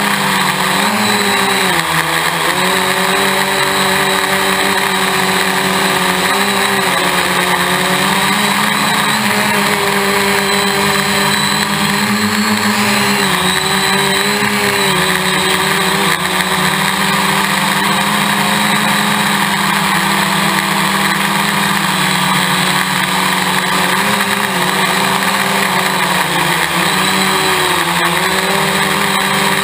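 Hexacopter's six electric motors and propellers whirring steadily and loudly, heard from the camera on the craft itself, with a hiss of rushing air underneath. The pitch wavers a little now and then as the motors adjust speed.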